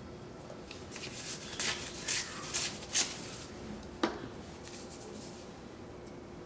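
Wooden sticks being fed into the metal burn chamber of a BioLite wood-burning camp stove: a few quick scrapes and rustles of wood against the steel, then one sharp clink about four seconds in.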